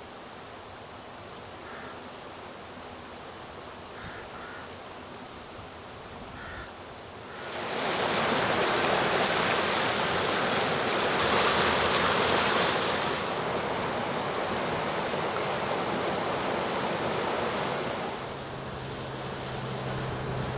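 A vehicle driving through a flooded road, its tyres throwing up a loud rush of water spray that builds up suddenly and then slowly dies away. An engine hum is left near the end.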